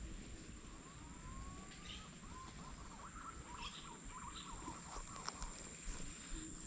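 Faint outdoor ambience: a steady high-pitched insect drone, with faint warbling bird calls from about one to five seconds in.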